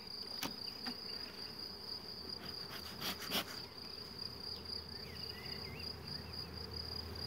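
Honeybees humming over an open hive, under a steady high-pitched insect trill. A cluster of clicks and knocks comes about three seconds in as a bee smoker is picked up and handled.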